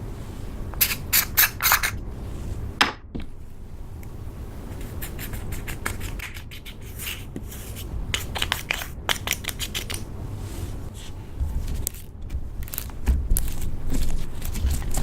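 Slime being worked by hand while it is coloured with makeup: quick runs of sticky clicks and pops, with scraping in between.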